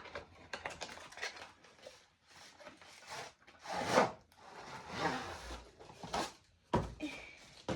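Handling of a newly unboxed studio light and its packaging: irregular rubbing and rustling with scattered clicks, a louder rub about four seconds in and a sharp knock near the end.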